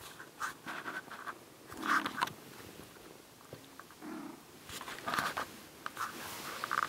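Kittens playing on a fabric blanket: their paws and claws scuffle and scratch in short, irregular bursts, with a louder flurry about two seconds in and again about five seconds in.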